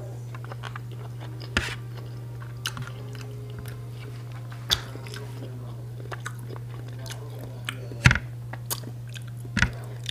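Close-up chewing and biting of a person eating chicken and rice by hand, with scattered short sharp clicks, the loudest a little after eight seconds in, over a steady low hum.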